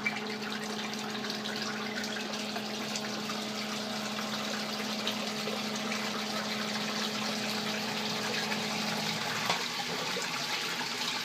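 Sump pump running with a steady hum over the noise of water in the pit; the pump motor cuts off about nine seconds in, leaving only the sound of water running into the sump.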